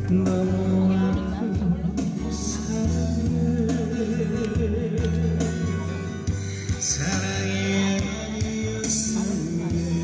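Music with a singing voice over a steady bass line; the voice holds a long wavering note around the middle.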